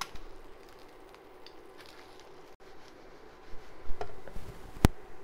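Halved boiled eggs frying quietly in oil in a pan. A few knocks and one sharp click near the end come from the spatula and pan being handled.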